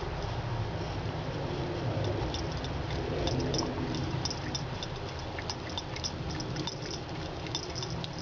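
A thin stream of water runs steadily from a faucet into a sink while a cat laps at it, with quick, irregular small clicks and splashes from the lapping.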